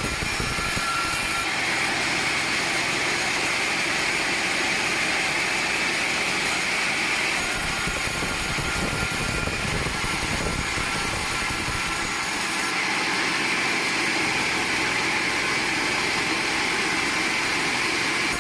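Sawmill saw running steadily, a continuous machine noise with a high whine that holds without pause.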